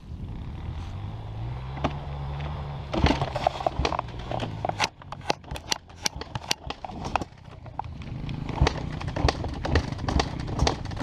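Dirt bike engine running, its revs rising briefly early on. Then for a few seconds there is a run of sharp clacks and knocks, after which the engine drone goes on with scattered knocks.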